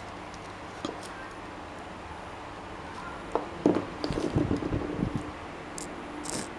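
Handling noises over a steady low hum: a click about a second in, then a run of knocks and clatter lasting about two seconds, and a short hiss near the end.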